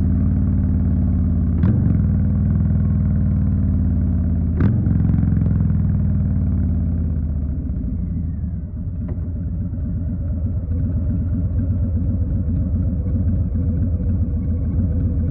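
2020 Harley-Davidson Street Bob's Milwaukee-Eight 107 V-twin running under way, with a deep, steady rumble. Two sharp clicks come near 2 s and 5 s in. The level dips a little around 8–9 s, then the engine pulls steadily again.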